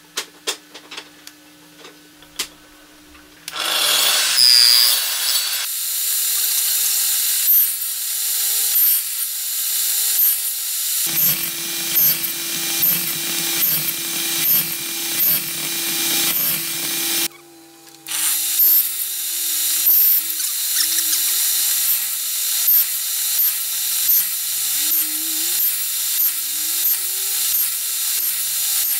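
Table saw cutting a row of box-joint slots in a board. A few light clicks come first as the wooden jig is set; then the saw starts, about four seconds in, and runs with a regular series of cutting passes about once a second, with a short break just past the middle.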